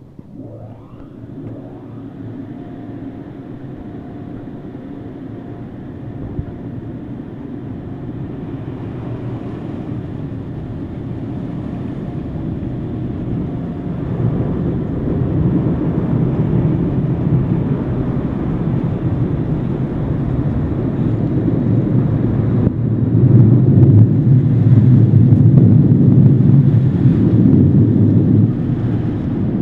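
Automatic car wash machinery heard from inside the car's cabin: a steady rushing roar that builds gradually and is loudest a few seconds before the end.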